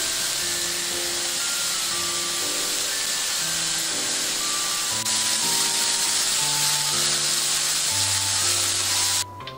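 Julienned carrots sizzling in hot oil in a frying pan as they are stir-fried, a steady loud hiss that cuts off suddenly near the end.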